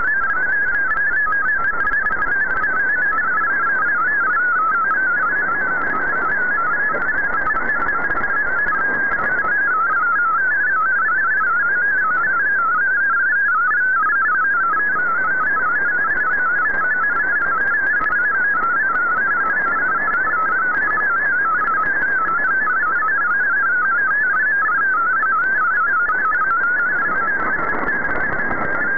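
MFSK digital text signal received over shortwave AM: a fast, unbroken warble of tones hopping within a narrow band, over a steady hiss of static. It is data being decoded as text.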